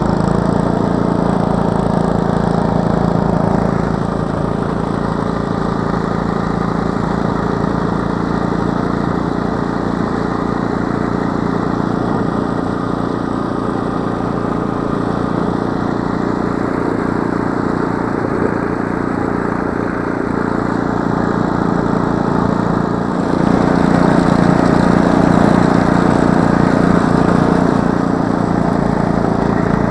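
Gas snowblower engine running steadily under load while the auger and chute throw snow. It grows louder for several seconds near the end as the machine pushes into a deep drift.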